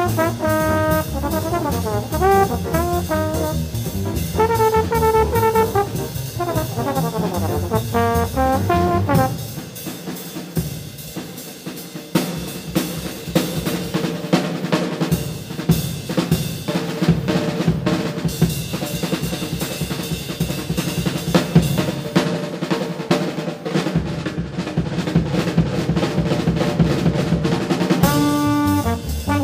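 Jazz combo recording: a trombone plays fast runs, then drops out about nine seconds in while the drums carry on alone. The trombone comes back in near the end.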